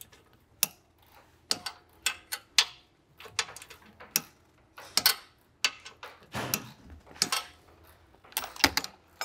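A ratchet wrench on the ball-joint nuts, with irregular sharp clicks and metal tool clinks as the nuts are turned an extra 45 degrees past their torque setting, and a short clatter of clicks near the end.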